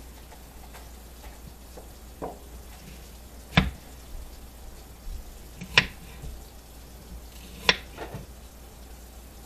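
Kitchenware knocking: three sharp knocks about two seconds apart, with a fainter one just before them, over a low steady hum.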